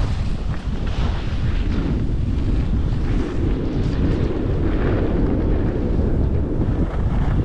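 Wind buffeting the action camera's microphone at skiing speed, a steady loud rumble, with the hiss of skis on packed snow swelling briefly about a second in and again near five seconds.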